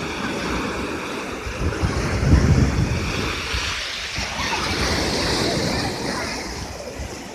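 Black Sea surf: a wave breaking, loudest about two seconds in, followed by the hissing wash of water.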